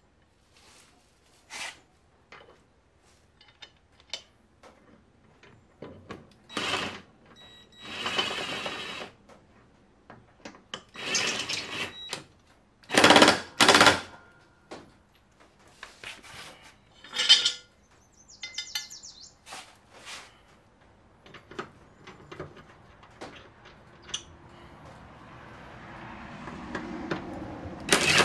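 Metal clinks and clunks of mower blades and bolts being handled, with several short bursts of a Ryobi cordless impact driver hammering as the blade bolts are run onto the mower deck spindles; the loudest burst starts right at the end.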